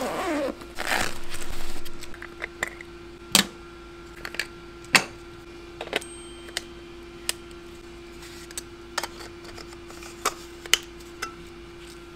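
A camera bag is handled with a short rustle, then a Nikon Z6 II mirrorless camera and its lens are handled, giving scattered sharp clicks and taps. A faint steady hum runs underneath.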